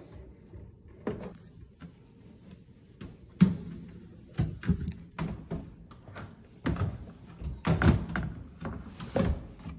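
Fisher & Paykel dishwasher drawer tub being handled and fitted back onto its metal slide rails: a string of knocks and clunks of metal and plastic, starting about three seconds in and coming thicker toward the end.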